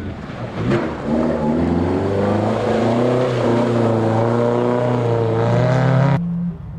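Rally car engine revving hard, its note climbing and then holding at high revs, with a sharp crack under a second in. The loud engine note cuts off abruptly about six seconds in, leaving a quieter low engine drone.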